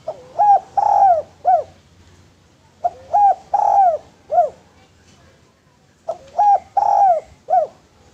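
Spotted dove (derkuku) cooing: three phrases a few seconds apart, each of four arching notes, two short, then a longer one, then a short one.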